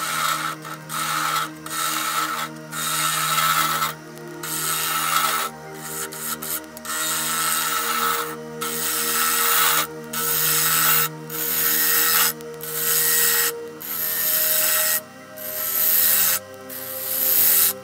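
Gouge cutting into the face of a spinning dried cherry bowl blank on a wood lathe. It makes a series of rasping cuts, each a second or two long, with short breaks between them, over a steady low hum.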